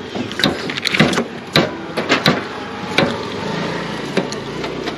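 A string of irregular sharp knocks and clicks. A low steady hum comes in about three and a half seconds in.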